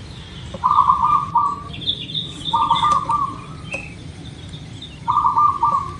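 Zebra dove (perkutut) cooing: three short phrases, each a quick stutter running into a held note. A smaller bird twitters higher in pitch between them.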